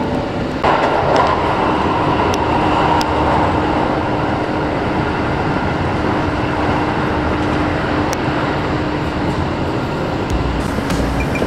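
Kintetsu Osaka Line electric train running at speed, heard from inside the carriage: steady wheel-on-rail running noise with a steady hum and occasional clicks from the track. About a second in the noise suddenly gets louder and stays so.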